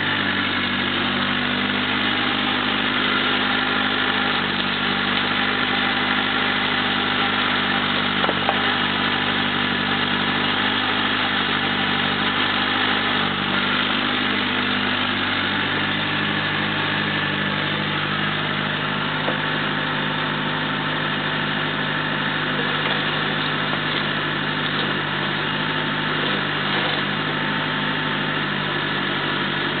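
Mini excavator's diesel engine running steadily while it works, the boom swinging and the bucket digging and dumping soil, with a small knock about eight seconds in.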